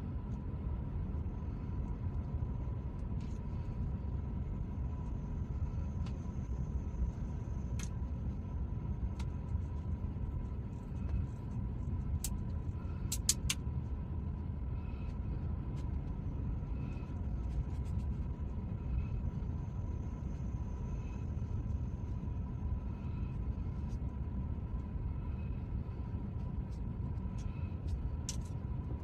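Steady low rumble inside a car's cabin, with a faint steady high whine under it and a few light clicks around the middle and near the end.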